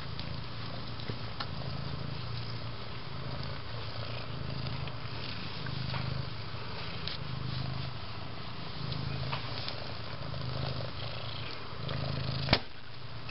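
A cat purring steadily, the purr swelling and fading with each breath about every second and a half, with faint rustles and a single sharp knock near the end.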